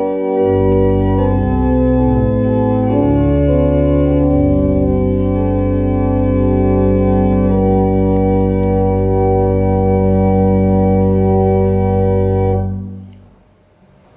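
Organ playing sustained hymn chords that change every second or so. The final chord dies away about 12.5 seconds in, leaving quiet room tone.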